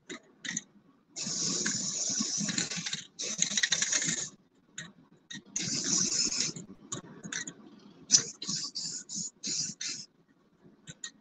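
Aerosol spray paint can hissing in bursts: three sprays of one to two seconds each, then a quick run of about six short puffs near the end.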